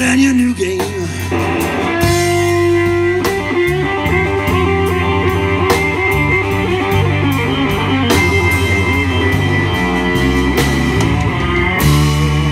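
Live blues band playing an instrumental passage: a Fender Stratocaster electric guitar plays lead lines with held and bent notes over bass guitar and a drum kit keeping a steady beat.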